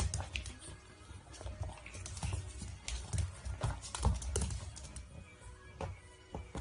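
Pug puppy wrestling a canvas sneaker on a wooden floor: irregular clicks, knocks and low thumps as the shoe and paws scuff and bump the boards.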